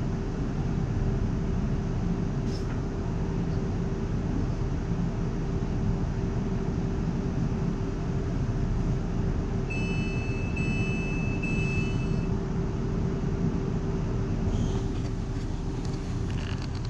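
Inside a Class 360/2 electric multiple-unit train: a steady rumble with a constant hum. About ten seconds in come three short high beeps, and a few light clicks follow near the end.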